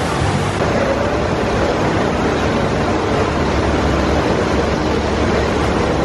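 Steady rushing of churning whitewater in a Hopkins river rapids ride's concrete channel.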